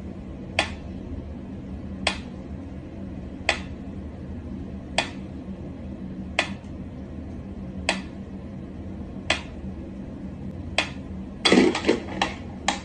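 Mechanical pyramid metronome ticking slowly and evenly, about one sharp tick every second and a half, over a steady low hum. Near the end, a short burst of scrabbling as a cat jumps back.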